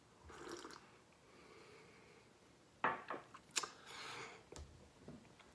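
Quiet sip of a drink from a ceramic mug. About three seconds in come a few light clicks and knocks as the mug is set down, then a breath.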